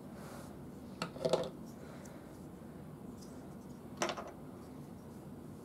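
Hard plastic clicks and knocks of toy parts being handled as the tank treads are pulled off a Transformers Spark Armor tank: a short cluster of clicks about a second in and a single click about four seconds in.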